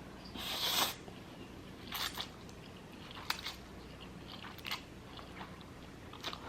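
Close-miked eating: one crunching bite about half a second in, then quiet chewing with a few short, sharp mouth clicks.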